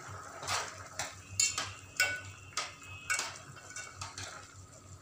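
A metal spoon stirring curry in an aluminium pot, knocking against the pot's sides in a run of about ten sharp, ringing clinks that stop shortly before the end.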